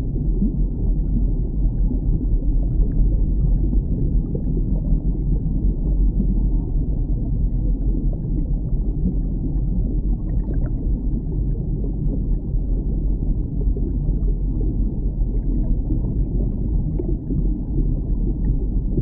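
Underwater ambience: a steady, deep rumbling wash of water with faint, scattered clicks and crackles.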